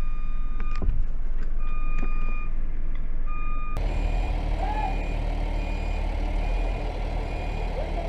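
Crane truck's engine running steadily, with its warning alarm beeping over and over in short beeps of one high tone. A single sharp knock sounds just under a second in.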